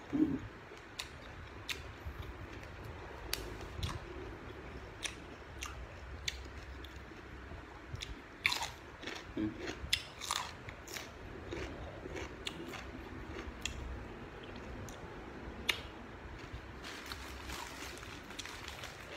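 A person chewing and biting raw yard-long beans with irregular crisp crunches, loudest around the middle.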